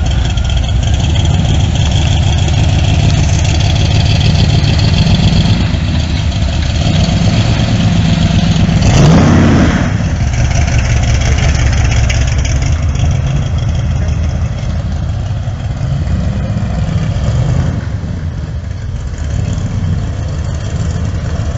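Chevrolet Corvette C3's V8 engine, breathing through side-pipe exhausts, running and being revved. The loudest moment is one rev about nine seconds in.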